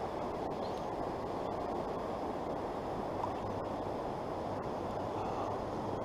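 Steady, even rush of a river's flowing current, dull and low with little high sound.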